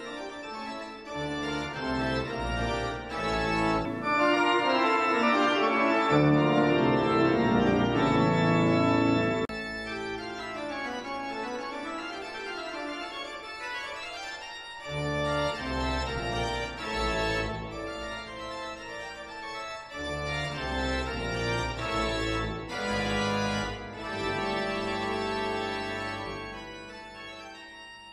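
Organ music: sustained chords over deep bass notes, growing louder a few seconds in, dropping back about halfway, swelling again, then fading away near the end.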